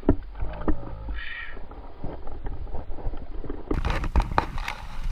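Water sloshing and splashing around a float tube as a hand works in the water, over a low rumble, with a few sharp knocks.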